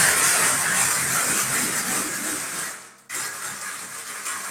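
Trowel scraping across freshly applied pebble-textured decorative plaster, a steady gritty rubbing as the surface is smoothed. It comes as one long stroke, a brief break about three seconds in, then another stroke.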